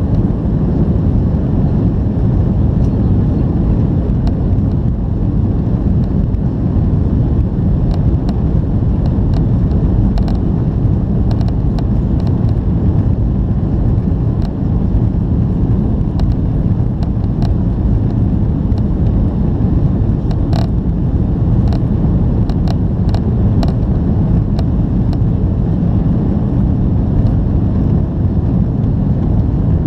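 Boeing 737-800 jet engines (CFM56-7B turbofans) and rushing air making a loud, steady low rumble, with scattered short clicks through the middle.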